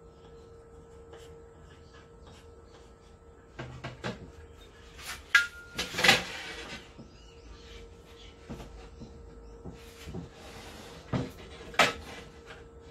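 Knocks and clatter of a long metal ruler being set down and shifted on a wooden board. The loudest knocks come about five and six seconds in, with two more near the end, over a faint steady hum.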